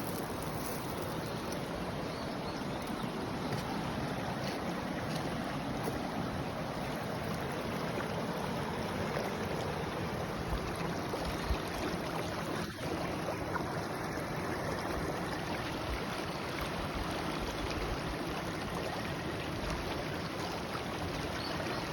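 A river swollen by heavy rain, its fast current rushing steadily.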